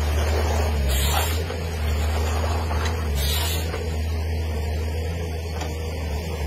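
Timber harvester's engine running steadily while its head feeds a felled stem, with two short hissing bursts about one and three seconds in.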